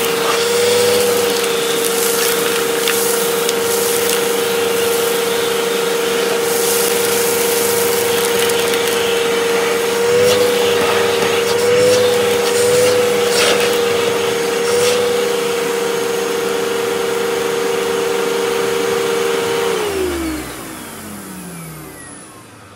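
Vacuum cleaner motor running steadily with a high whine while the bare hose sucks loose dirt out of a plastic tub, with crackles of grit going up the hose and the pitch wavering as the load changes. About 20 seconds in it is switched off and winds down, the whine falling in pitch and fading.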